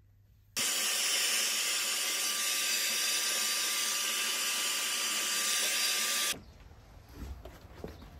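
Handheld hair dryer blowing: a steady rush of air with a faint constant whine, starting abruptly about half a second in and cutting off suddenly about six seconds in.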